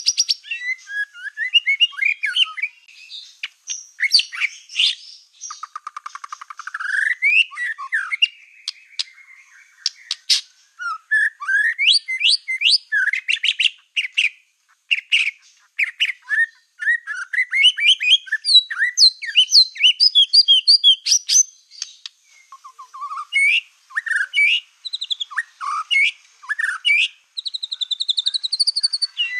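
A black-tailed white-rumped shama (murai batu ekor hitam) in full song: a long, varied run of fast whistles, chirps and rattling trills with brief pauses, ending in a few clear rising whistles.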